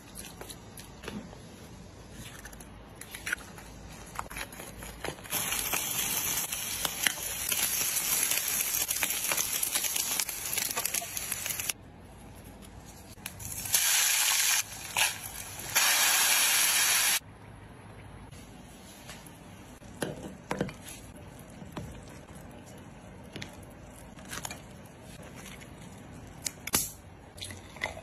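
Cooking sounds: light clicks and scraping of a fork mixing crab meat in a bowl, then several seconds of loud hissing sizzle. Near the middle comes a liquid pour into a hot cast-iron pot onto a block of hotpot base with dried chilies, hissing in two loud bursts.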